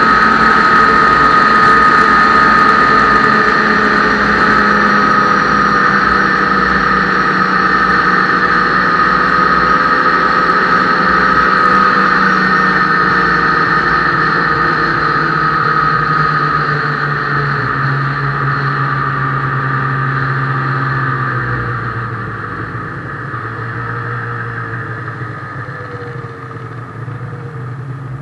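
Ski-Doo snowmobile engine running steadily at speed with a high steady whine, then easing off and slowing over the last several seconds, its pitch and level falling.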